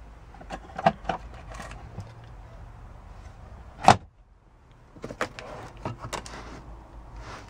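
Hands handling a car's interior trim: a string of plastic clicks and knocks, one loud sharp knock a little under halfway in, then a quick run of clicks as the sun visor and its mirror cover are worked.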